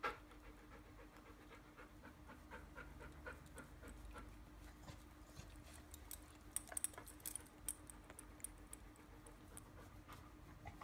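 A dog panting quietly in a quick, even rhythm, with a sharp click at the start and light metallic clinks of its collar hardware a little past the middle.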